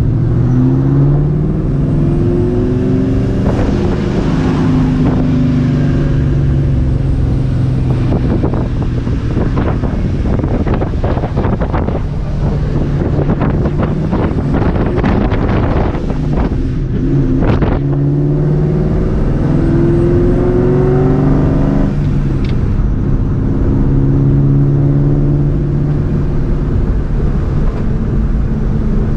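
Straight-piped, Vortech-supercharged 2004 Mustang GT V8 driving. The engine note climbs as it accelerates and drops back at gear changes several times, with a rough, crackly stretch in the middle and a steadier cruise near the end.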